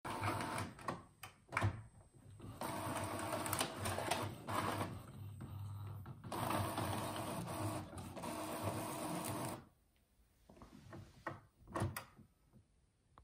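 Epson EcoTank ET-3850 inkjet printer feeding and printing a No. 10 envelope: the print head carriage runs back and forth in uneven stretches. It stops about ten seconds in, leaving a few faint clicks.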